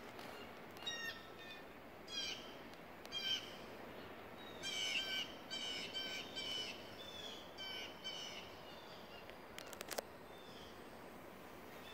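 Outdoor birdsong: a bird repeating short, high-pitched phrases, busiest in the middle, over faint background noise. A few sharp clicks come about ten seconds in.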